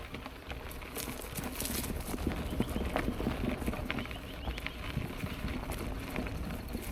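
Mountain bike rolling over a rocky dirt trail: tyres crunching and the bike rattling in quick, irregular knocks and clicks over a steady low rumble.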